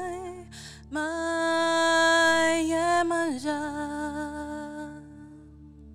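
A woman singing a long held note without words, sliding down to a lower note a little past three seconds in and fading away, over a faint steady low drone.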